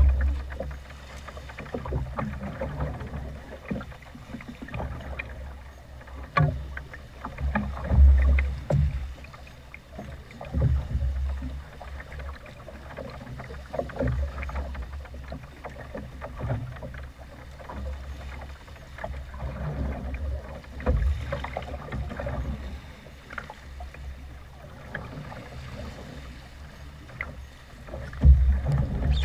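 Small open boat in choppy sea: waves slapping and thudding against the hull, with wind on the microphone and scattered knocks. The low thuds surge loudest about eight seconds in, again a couple of seconds later, and near the end.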